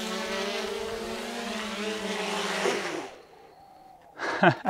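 GoPro Karma quadcopter's propellers buzzing steadily as it hovers down to land, then spinning down and stopping about three seconds in once it has touched down. A short, louder voice sound follows near the end.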